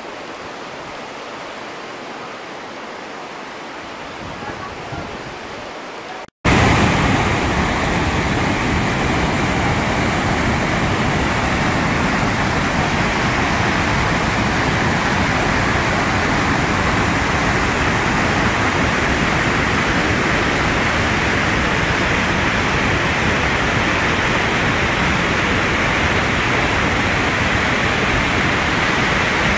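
Loud, steady rush of whitewater pouring over rocks below a hydroelectric dam's spillway, starting abruptly about six seconds in. Before it, a quieter outdoor hiss.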